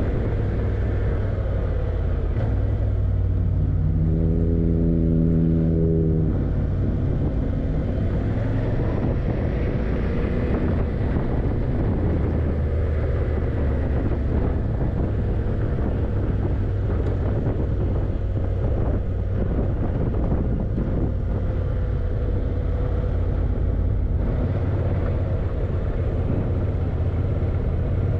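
Yamaha TDM900's parallel-twin engine running low and steady while riding, with wind and road noise over it. About four seconds in a steady pitched hum rises over it for about two seconds.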